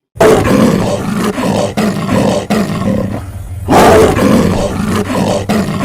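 Black leopard giving two long, rough growling roars with a pulsing texture, the second beginning a little past the middle.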